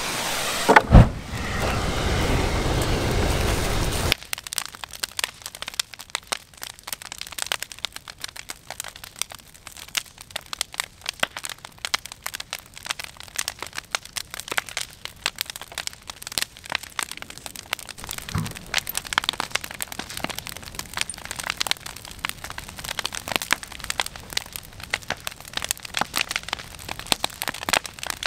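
Bonfire of scrap lumber crackling and popping in dense, irregular snaps. It opens with a loud thump and a few seconds of rushing noise that stops suddenly, and a dull thump comes about two-thirds of the way through.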